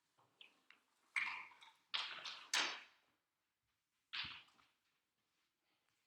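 A laptop's power cable being handled and plugged in: a few short scraping rustles and knocks, the loudest cluster a little after the first second and one more at about four seconds.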